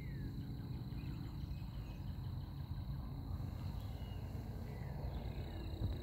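Outdoor garden ambience: a low rumbling noise with a steady high-pitched tone, and a few faint short bird chirps scattered through.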